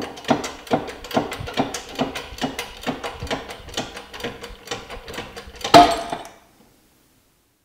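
A shop press working a ball bearing off an electric motor's armature shaft: a steady series of sharp clicks, about two a second, then a loud crack near the end as the bearing breaks free of the shaft, after which it goes silent.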